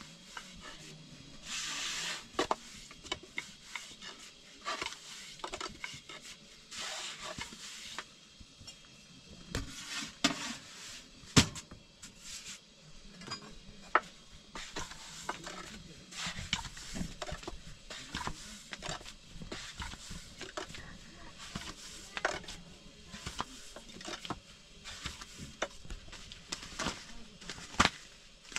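A long thin wooden rolling pin working flatbread dough on a round wooden board: many sharp wooden clicks and knocks, with short swishing rolls in between.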